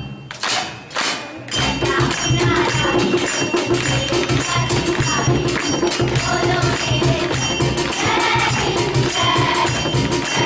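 A group song with a steady percussion beat and jingling tambourine-like strokes, and voices singing the melody. Near the start the beat breaks off briefly for two quick whooshing sweeps, then picks up again about a second and a half in.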